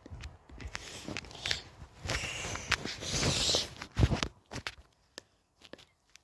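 Handling noise: scattered clicks and knocks, two spells of rustling, and a heavy thump about four seconds in.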